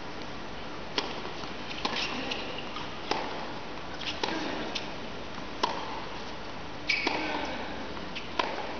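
A tennis rally on a hard indoor court: sharp racket-on-ball hits, about one every second or two, ringing in the arena, with short squeaks of tennis shoes on the court between them.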